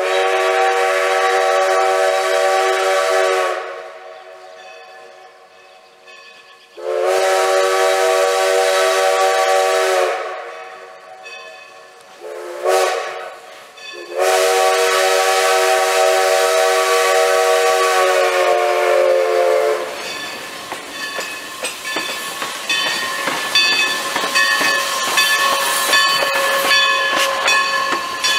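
Steam locomotive whistle blowing the grade-crossing signal: long, long, short, long. Then the locomotive and a boxcar roll past close by with clanking and rail noise.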